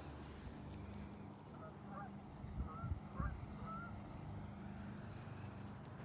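A few short, faint goose honks from out on the water, over small waves lapping at the shore and a low rumble on the microphone, with a few soft thumps about halfway.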